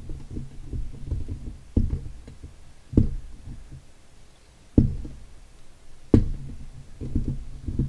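Dull low knocks and bumps of handling noise, with four sharper thuds spread through and a patter of smaller knocks between them.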